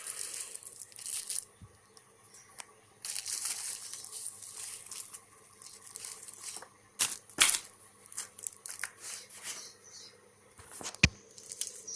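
Packaging wrap being pulled off, crinkling and tearing in spells, with a few sharp knocks near the middle and end.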